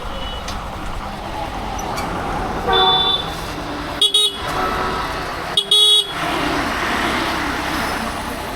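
Street traffic with vehicle horns honking: three short, high-pitched blasts about three, four and six seconds in, over a steady hum of passing traffic.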